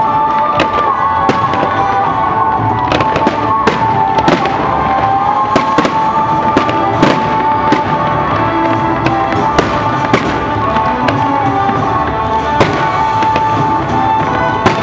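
Fireworks bursting in rapid succession, with many sharp bangs and crackles, over music with long held notes.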